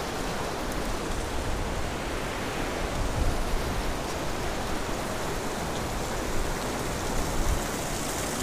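Steady rush of a shallow mountain river running a little high over gravel and rocks, with an irregular low rumble underneath.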